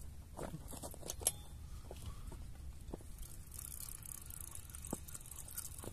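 Faint clicks and rattles of a fishing rod and reel being picked up and lifted into a strike, a few scattered clicks over a low steady rumble.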